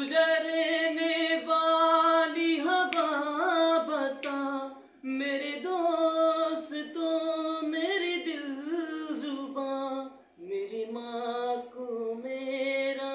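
A man singing unaccompanied, holding long notes with wavering, ornamented turns of pitch, pausing briefly for breath about five and ten seconds in.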